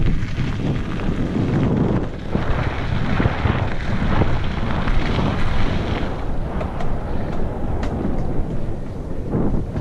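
Wind buffeting the microphone of a camera on a mountain bike rolling fast down a gravel trail, with the tyres rumbling over the gravel. Near the end there are a few short knocks as the wheels reach a wooden boardwalk.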